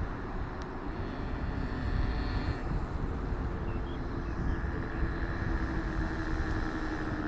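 Twin-engine radio-controlled model airplane running on a low landing approach, a steady motor tone that sinks slightly in pitch near the end, under a heavy rumble of wind on the microphone.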